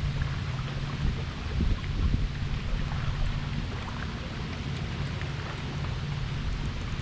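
Wind rumbling on an action camera's microphone on open water, with a steady low hum underneath.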